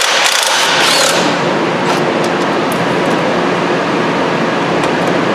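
Air-powered wrench running steadily in long bursts, loosening the upper engine mount bolts on a 2003 Nissan Altima's 2.5-litre engine.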